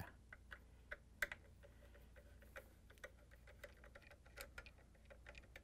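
Faint, irregular clicks of a Torx 15 screwdriver and a small flat-blade screwdriver against the screws and metal lid hinge of a top-load washer as the hinge screws are backed out.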